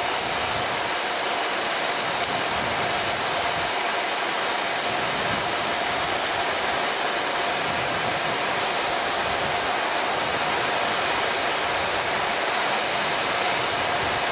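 Steady rush of airflow and engine noise inside the flight deck of a Boeing 737 MAX on short final approach, with a faint steady hum running through it.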